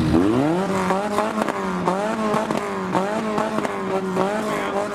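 Speedway derby race car engines revving hard. The pitch climbs steeply at first, then rises and falls about twice a second as the drivers get on and off the throttle, with short sharp cracks throughout.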